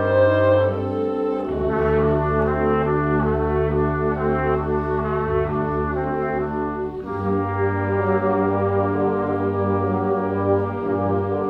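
Brass ensemble playing slow, sustained chords, the harmony moving to new chords about a second and a half in and again about seven seconds in.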